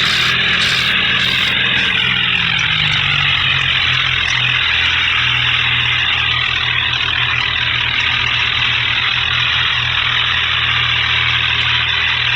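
A vehicle engine running loudly. Its pitch falls over the first two or three seconds, as if it is slowing down, then it holds steady with a heavy rushing noise over it.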